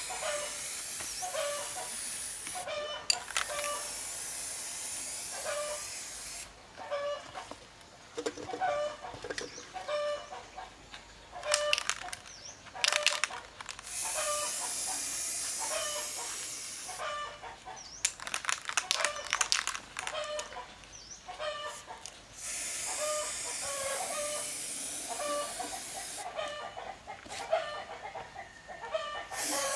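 Aerosol spray-paint can hissing in long bursts of a few seconds each, stopping and starting, with bursts of rapid clicking between sprays. Chickens cluck repeatedly in the background.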